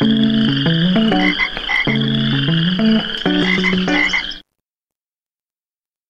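LG Voyager (VX10000) built-in ringtone playing as a direct audio transfer: a phrase of low stepped notes repeating about every two seconds under a wavering high tone and short chirps. It cuts off suddenly about four seconds in, followed by dead silence.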